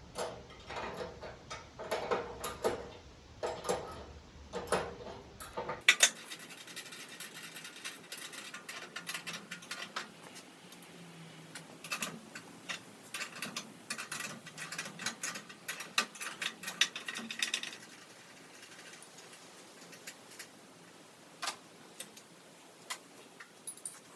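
Hand ratchet clicking and metal tools clinking and knocking as nuts are loosened on the rear leaf-spring perch bolts. The fast ratchet clicking is densest through the middle, with only scattered clicks near the end.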